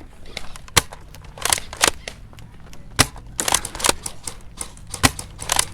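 Airsoft guns firing during a skirmish: about ten sharp cracks at uneven spacing, the loudest about three and five seconds in.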